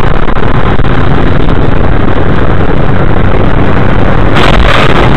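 Vehicle driving noise picked up by a dash camera: a loud, steady rumble of engine and road. About four and a half seconds in, a harsher hiss joins it.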